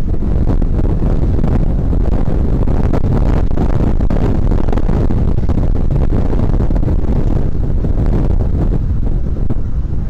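Wind buffeting the microphone: a loud, steady low rumble with no distinct events.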